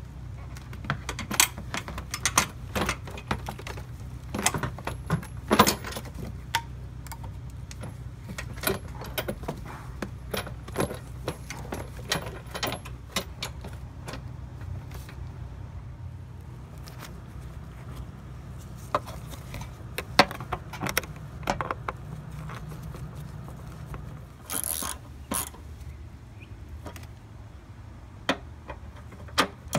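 Irregular clicks, knocks and rattles of the plastic air filter box of a Honda Civic being handled and fitted back together, with a short scraping rush about three quarters of the way through, over a steady low hum.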